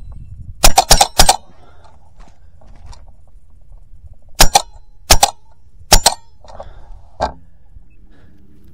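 Edgun Leshiy 2 .25-calibre PCP air rifle firing sharp shots: three in quick succession about a second in, then three more spaced well under a second apart, and a fainter crack near the end.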